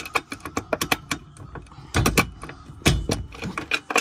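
Quick metallic clicks and taps as a bolt is fitted and jiggled through a freshly drilled hole in a steel roll-cage foot plate, with two heavier knocks about two and three seconds in.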